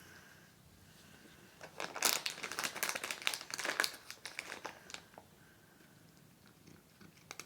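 Crinkly plastic treat packet rustled and handled for about three seconds, starting near two seconds in, a dense run of crackles.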